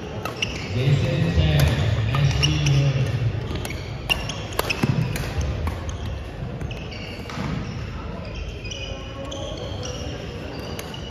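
Badminton play in a gymnasium: a few sharp racket hits on the shuttlecock early on and sneakers squeaking on the hardwood court, with voices carrying in the echoing hall.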